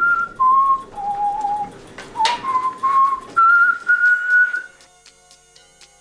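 A man whistling a slow tune: held single notes stepping down, then climbing back up, ending about three-quarters of the way through. A short click comes midway.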